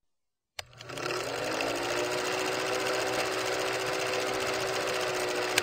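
Film-projector sound effect: a click, then the projector running with a fast, even rattle and a hum that rises in pitch over the first second as it comes up to speed. It ends with a sharp click near the end.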